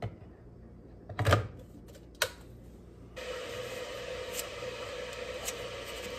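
Electric kettle set down on its base with a knock, a sharp click as it is switched on, then a steady hiss from about three seconds in as it starts heating. A few light metallic clicks come from a stainless-steel hand coffee grinder being handled.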